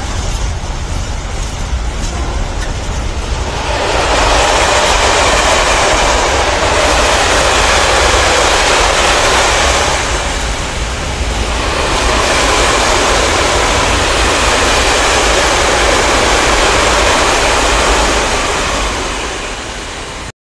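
A long freight train of high-sided open wagons rolling past close by: steady, loud wheel and rail noise that swells about four seconds in, dips briefly midway, and fades away near the end as the last wagon goes by.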